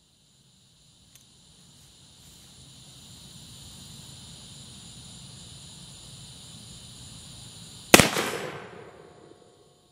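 A single shot from a Pietta 1858 Remington .44 black powder revolver about eight seconds in, dying away over a second or so. Crickets or other insects buzz steadily in the background, and there is a faint click about a second in.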